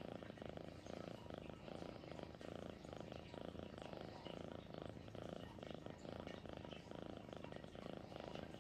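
Tabby kitten purring steadily and continuously while being stroked on its belly.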